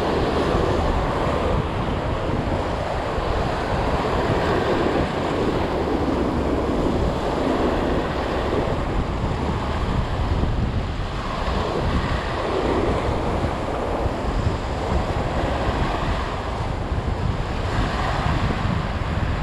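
Sea surf breaking and washing against the rocks at the foot of a jetty, rising and falling in irregular surges. Strong wind buffets the microphone.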